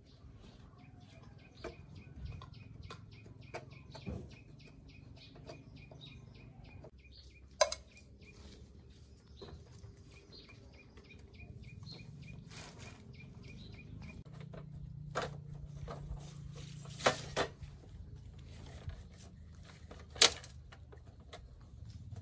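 Scattered sharp clinks and knocks, about six, over a low hum, with a bird chirping repeatedly in the background.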